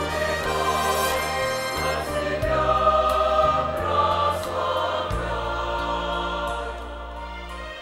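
Mixed church choir of men's and women's voices singing a hymn in harmony, over low sustained accompaniment notes that change every second or so. The singing eases off in loudness near the end.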